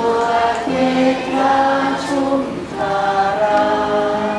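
A large mixed crowd of adults and children singing together as one group, holding slow, drawn-out notes.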